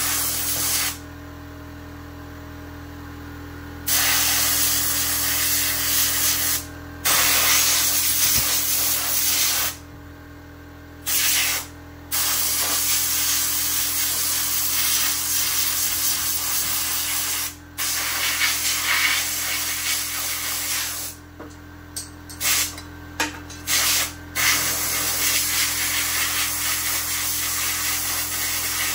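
Compressed air from an air-compressor blow gun blasting in a series of loud hissing bursts, each a second to several seconds long with short pauses between, blowing dirt out of a chainsaw.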